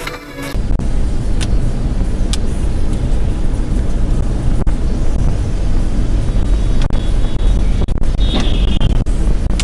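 Dashcam audio from inside a moving car: a steady low rumble of engine and tyre noise, with a few faint clicks and a brief high-pitched squeak about eight seconds in. It opens with half a second of background music before a cut.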